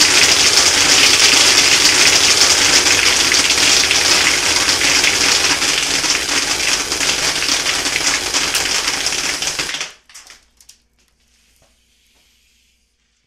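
Homemade soda-bottle airsoft machine gun fed by an air compressor blowgun, firing full-auto: a continuous blast of compressed air with a dense rattle of pellets streaming out and striking the target. It cuts off suddenly about ten seconds in, leaving a few faint clicks.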